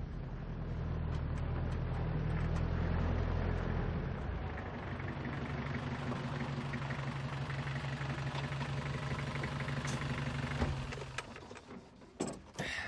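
Pickup truck engine running as the truck pulls up, then idling steadily, and switched off about eleven seconds in. A door clicks open near the end.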